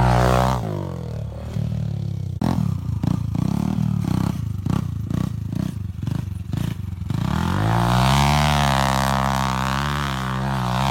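Dirt bike engine running and revving. Through the middle it pulses about three times a second, then holds a longer rev that rises and falls.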